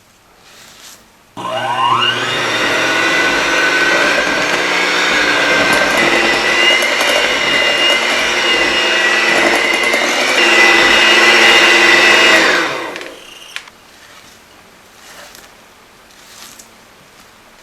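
Small electric kitchen appliance motor, blender-like, switched on and run for about eleven seconds: its whine rises as it spins up, steps higher about halfway through, and winds down as it is switched off.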